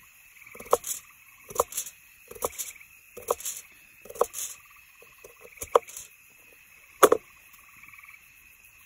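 A frog croaking over and over, roughly once a second, with the loudest croak shortly before the end. Behind it runs a steady trilling chorus of insects.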